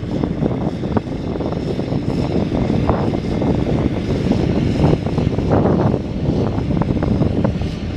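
2003 Mack truck tractor driving slowly across a gravel yard, its diesel engine running, with wind buffeting the microphone.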